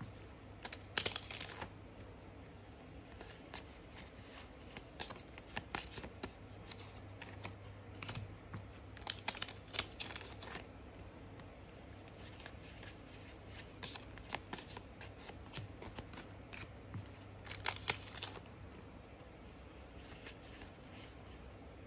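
Yu-Gi-Oh trading cards being handled and flipped through one by one: scattered clusters of soft flicks and clicks with short pauses between them.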